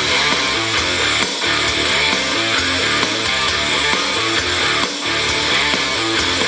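Guitar music played through a Harley-Davidson touring bike's upper-fairing stereo speakers, mounted open in the fairing with no speaker pods or baffles behind them.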